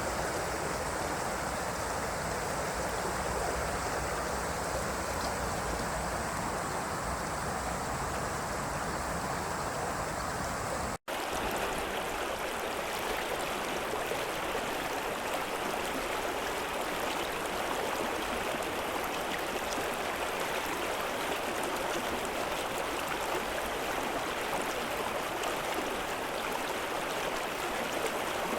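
River water rushing and flowing steadily. About eleven seconds in the sound drops out for an instant and cuts to another stretch of water, with less low rumble and more hiss.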